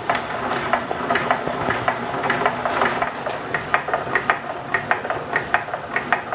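Hand crank turning on a wooden lever-type joint test fixture, moving a weight carriage along the beam: a quick, uneven run of small clicks, about five a second. The load on a brazed aluminum tube joint is rising as it goes.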